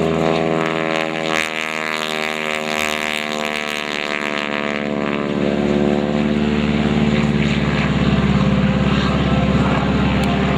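Stearman biplane's radial engine and propeller droning through a low pass, the pitch falling over a few seconds about a second in, then holding steady.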